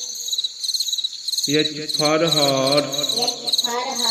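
Crickets chirping in a steady, evenly pulsing rhythm. About one and a half seconds in, a long, wavering, voice-like call rises over them and lasts about two seconds.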